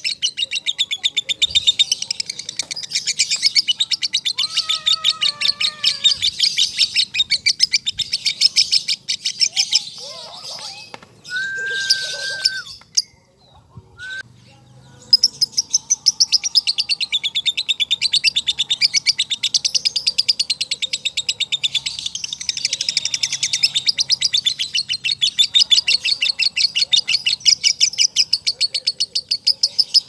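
Male lovebird singing 'ngekek', the long lovebird chatter: a fast, unbroken run of shrill, evenly spaced notes. It breaks off for a few seconds around the middle, where a brief steady whistle is heard, then starts up again.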